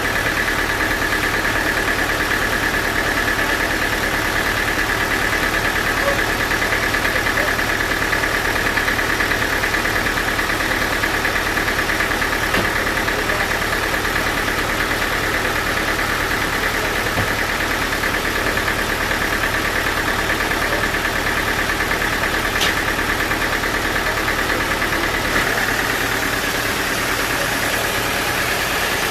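Sawmill machinery running steadily: a constant mechanical hum with a steady high whine over it.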